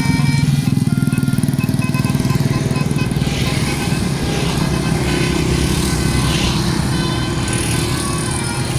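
Bus telolet basuri horn playing a tune of short stepped notes over the low rumble of the bus's engine as it passes.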